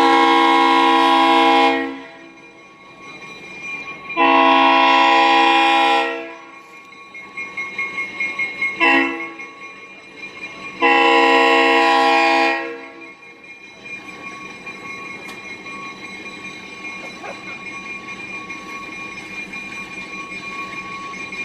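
Diesel locomotive's air horn sounding a chord of several notes in two long blasts, one short and a final long one. That is the standard grade-crossing warning signal. After the last blast the locomotive runs on with a steady rumble as it approaches.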